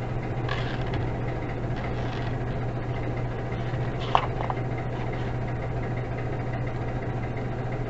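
A steady low hum, with a brief soft sound about four seconds in as a book page is turned.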